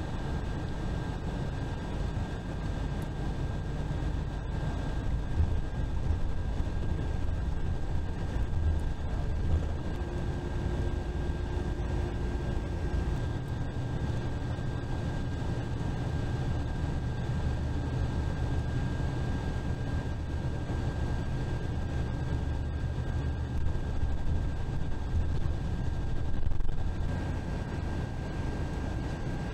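Bus cabin noise at highway speed: a steady low engine and road rumble with a thin, constant whine above it. The engine's note shifts slightly about ten to thirteen seconds in.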